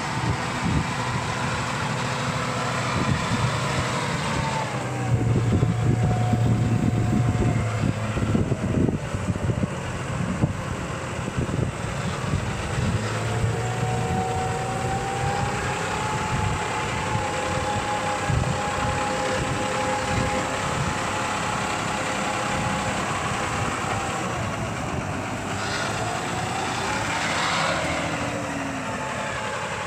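John Deere tractor's diesel engine running under load, its drone rising and falling in pitch, with rattling and knocking in the first half.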